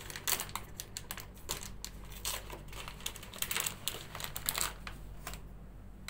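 Plastic wrapping around a sterile dressing tray being torn and peeled open by hand, a run of irregular crinkles and crackles that dies away about five seconds in.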